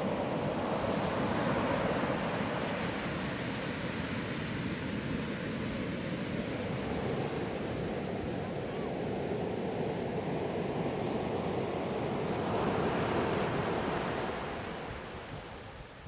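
Sea surf breaking on a beach, with the foam washing up and hissing across the shore in a steady rush. It swells about two seconds in and again near the end as waves break, then falls away in the last couple of seconds as the wash spreads out.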